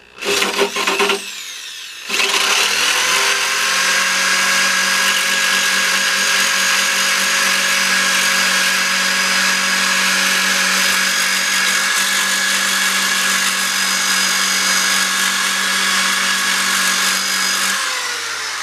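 Corded rotary tool with a sanding drum running at high speed, grinding paint and gel coat off the cracks in a polyester-resin motorcycle fairing. It runs briefly and winds down about a second in, then runs steadily with a high whine for about fifteen seconds before winding down near the end.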